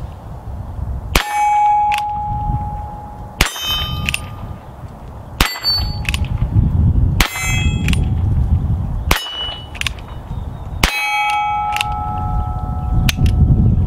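Ruger Wrangler .22 LR single-action revolver fired six times, about two seconds apart, each shot followed by the metallic ring of a steel target being hit.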